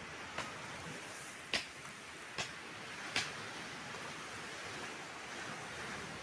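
Steady wash of surf breaking on a pebble beach. Four short, sharp clicks come in the first three seconds or so, the second and fourth the loudest.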